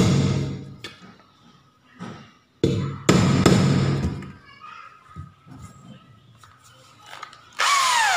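Hammer striking a center punch held on a square metal tube, the tube ringing after each blow: one blow at the start, then two or three more in quick succession about two and a half seconds in. Near the end an electric drill runs briefly, its pitch falling.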